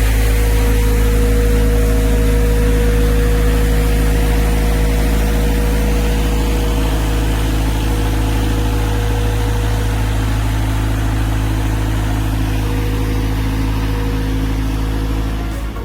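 A machine's motor running steadily, with a deep hum and a constant mid-pitched tone over mechanical noise.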